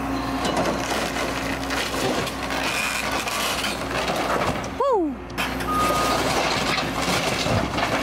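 Cat 314E excavator's diesel engine running under load while its bucket tears down a porch roof, with wood and debris cracking and crashing throughout. About five seconds in there is a short falling squeal.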